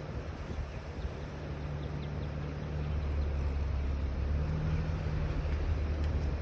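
Car driving: a steady low engine and road drone that grows louder about halfway through.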